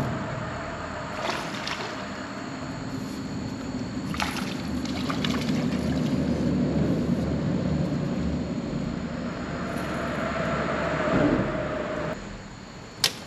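Small boat motor running steadily with water sloshing against the hull; it cuts off about twelve seconds in, followed by a single sharp click.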